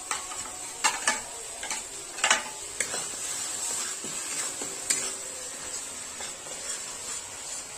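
Onion-tomato masala sizzling in a metal kadhai while a metal spatula stirs and scrapes it, with a few sharp clinks of the spatula against the pan about a second in, around two and a half seconds and near five seconds.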